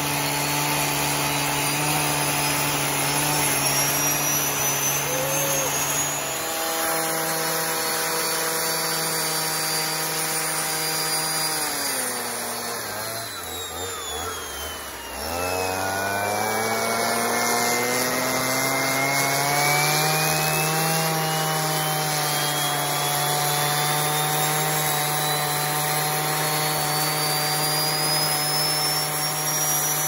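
Handheld gas leaf blower running at full throttle into a 6.0 Power Stroke diesel turbocharger on a wood-fired burn barrel, with the turbo's high whine climbing as it spools. About twelve seconds in the blower is throttled down and comes back up a few seconds later. The turbo whine falls more slowly, reaching its lowest about eighteen seconds in, then spools up again and keeps rising.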